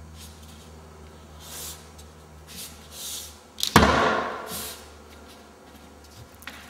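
Hands handling cornice against the wall, with short rubbing and scraping swishes as the cornice is pressed into the wet cornice cement and the excess is wiped off with a finger. About halfway through there is one loud knock, over a steady low hum.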